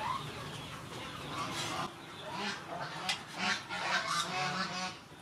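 Water splashing and squelching as a whole squid is rubbed and rinsed by hand in a large aluminium basin, with repeated short animal calls in the background.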